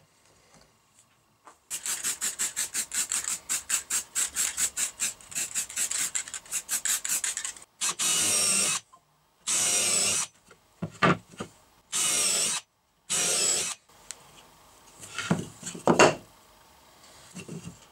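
A hand file rasping back and forth on a metal piece clamped in a bench vise, about five strokes a second for some six seconds. Then a cordless drill runs into a pine board in four short bursts with a couple of brief blips between, and a few knocks of wooden boards being handled follow near the end.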